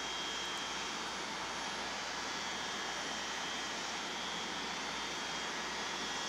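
Steady outdoor background hiss with no distinct events, a faint high whine in it fading about a second in and returning near the end.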